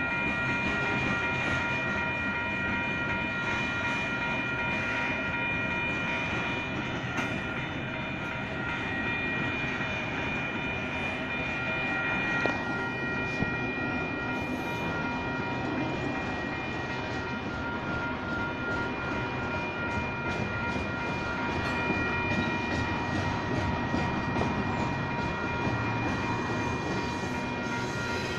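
A freight train rolls steadily through a grade crossing, its wheels rumbling and clattering over the rails. Over it, the crossing's WCH Type 1 bells ring steadily, and there are a few sharp knocks about halfway through.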